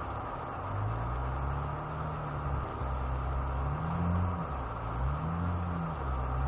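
Off-road vehicle engine revving in short surges over a low idle hum, its pitch rising and falling three or four times as it works over rocks at crawling speed.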